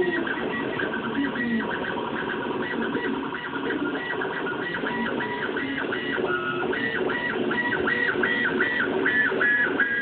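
Stepper motors of a homemade CNC machine whining as they drive it through a pattern, the pitch stepping up and down with each short move. In the second half it settles into quick back-and-forth moves, about two to three a second.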